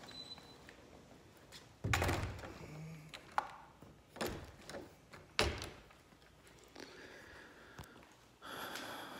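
A door shutting with a thunk about two seconds in, followed by a sharp click and two more knocks a second apart, with a short rustle near the end.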